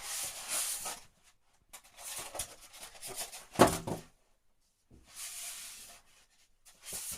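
Cardboard and polystyrene packaging rustling and rubbing in several separate bouts as a new iMac is slid out of its box. About three and a half seconds in there is one short, loud squeak.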